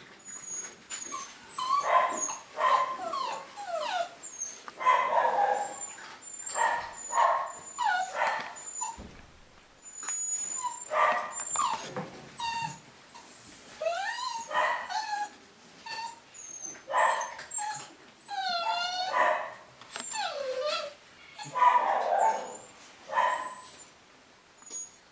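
A litter of young Cavapoo puppies (Cavalier King Charles spaniel × poodle) whining and yipping: many short high-pitched calls that rise and fall in pitch, one after another.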